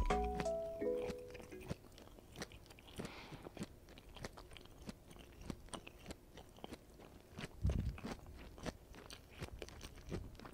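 Hot olive oil crackling in a small cast iron skillet of garlic shrimp, with many small irregular pops. The last notes of background music end in the first second and a half, and there is a low thump about three-quarters of the way through.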